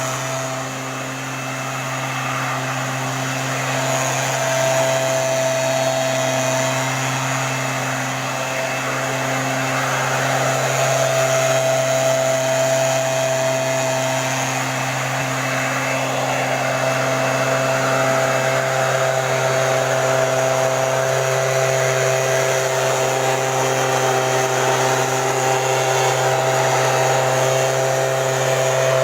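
STIHL motorised backpack sprayer's small petrol engine running steadily at speed, a constant drone with a whine and rushing air over it.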